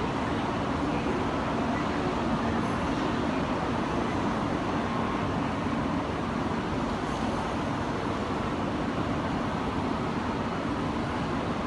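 Steady, even rumble and hum on a Shinkansen station platform, with no distinct events.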